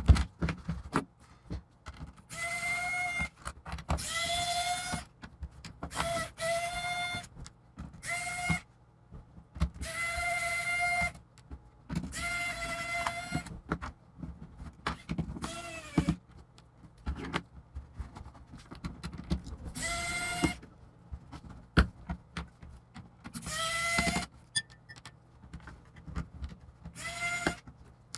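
Small electric screwdriver whirring in about ten short runs, each lasting up to a second and a half, as it works the laptop's case screws. The pitch sags at the end of several runs, and small clicks and taps of handling fall between them.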